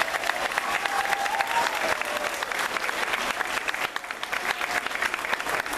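Large audience applauding: dense, steady clapping from many hands, with a few voices faintly over it.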